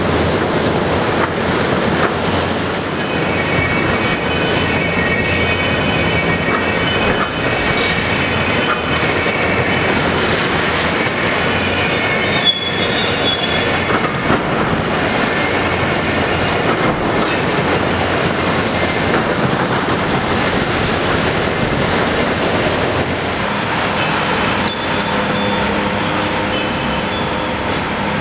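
Heavy Hitachi demolition excavators working rubble: diesel engines running under load with concrete and steel debris crunching and scraping, and several sharp knocks. High-pitched metallic squeals come and go from about three to fourteen seconds in, and again briefly near the end.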